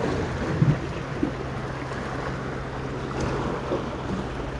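Sea washing against shoreline rocks, with wind rumbling on the microphone. A brief knock sounds about half a second in.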